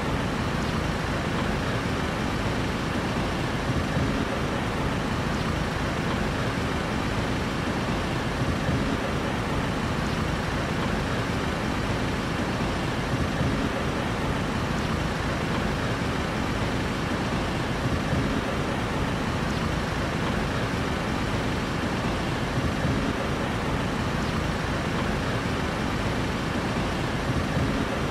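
Steady city traffic noise: an even hum of engines and road noise, with no single vehicle standing out.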